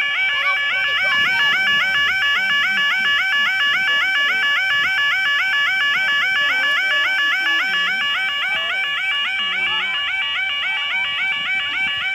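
UK level crossing alarm sounding: a loud electronic yelping warble, its pitch sweeping up and down several times a second without a break.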